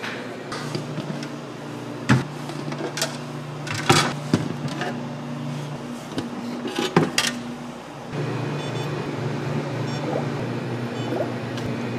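Steady low electrical hum of the store's machines, with scattered sharp clicks and clatters of plastic tongs and containers, among them tongs picking pickled radish from a plastic tray.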